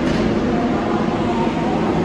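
A New York City subway train of R142/R142A cars running, a steady rail noise with a low hum underneath.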